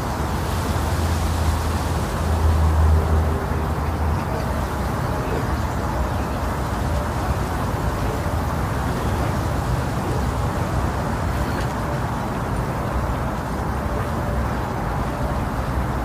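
Wind: a steady rushing noise with a heavy low rumble, swelling briefly in a gust about two to three seconds in.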